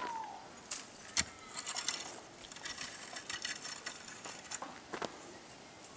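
Garden rake scraping and raking over loose, dry soil in repeated strokes, covering freshly sown seed. A sharp knock comes about a second in.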